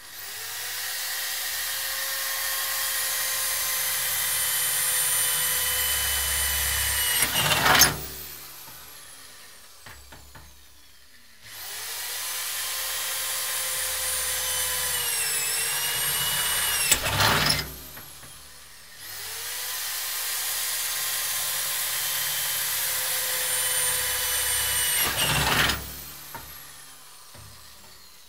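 Motor-driven spoons on wire rattling and scraping against the inside of a steel oil drum, a dense metallic clatter with the drum's ringing tones over it. It comes in three runs of about six seconds. Each run starts as the motor spins up and ends abruptly with a louder clatter.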